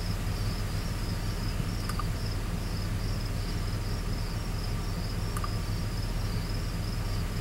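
Crickets chirping in a steady pulsing trill over the low, even hum of the truck's 6.0 V8 idling. Two faint double clicks sound about two seconds in and again past five seconds.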